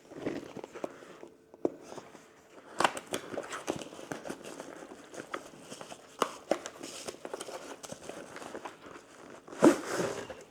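A cardboard box being opened and its packaging handled: irregular rustling and crinkling with scattered clicks and knocks, and a louder rustle near the end.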